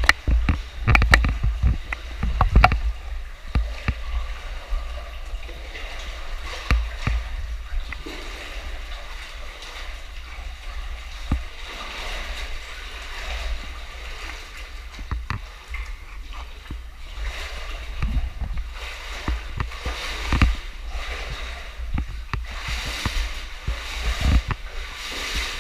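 Water splashing and sloshing as a caver swims through a flooded cave passage, with a few loud splashes in the first three seconds and then steadier, smaller splashes.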